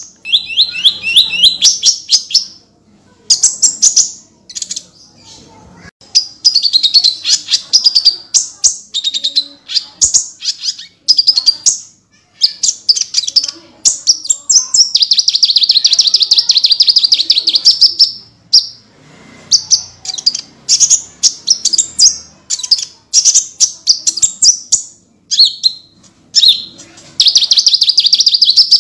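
Konin (kolibri ninja) sunbird singing nonstop in high, rapid-fire trills, the 'tembakan' bursts prized by songbird keepers. The bursts come one after another with short breaks, and one long run of about four seconds falls midway.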